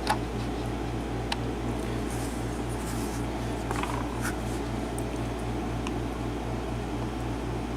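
Steady low background hum with a rapid, even pulsing, like a fan or electrical hum, with a few faint light clicks.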